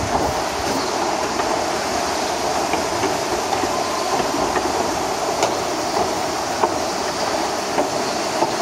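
Steady rush of a fast river running through a narrow rock canyon, with a few faint clicks scattered through it.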